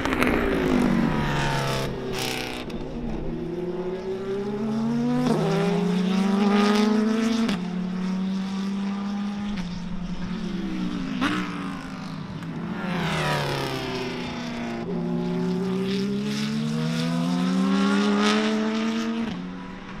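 Corvette C8.R race car's flat-plane-crank V8 at racing speed. Its pitch drops as it slows and downshifts, then climbs in steps through quick gear changes as it accelerates. The pattern repeats a few times as it passes.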